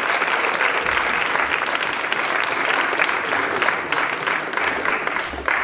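Live audience applauding, a dense steady patter of many hands clapping, easing off a little near the end.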